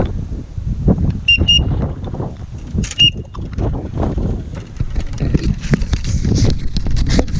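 Strong wind buffeting the microphone in uneven gusts, with three short, high, whistled peeps, two close together about a second in and one about three seconds in.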